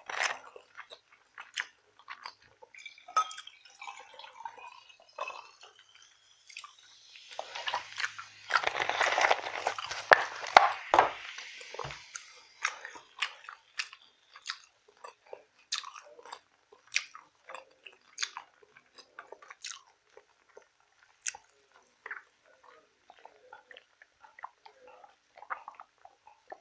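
Close-miked eating sounds: a person chewing and biting food with wet, smacking clicks, and a louder, denser stretch of noise about seven to twelve seconds in.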